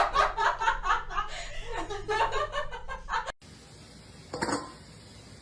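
A person laughing hard in quick broken bursts, cut off abruptly a little past halfway; after it only a low background hiss with one brief scuffing noise.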